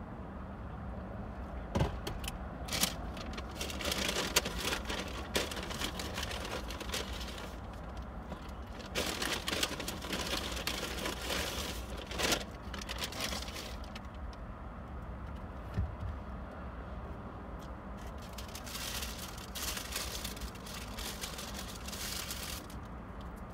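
Cars passing on the road one after another, three swelling and fading rushes of tyre noise heard from inside a parked car, over a low steady rumble.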